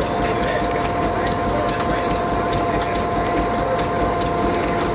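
Antique belt-driven cotton gin running empty: a steady mechanical whir with a continuous whine and an even, rapid ticking.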